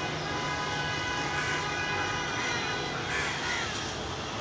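A motor engine running steadily with a constant whine, and a crow cawing briefly about three seconds in.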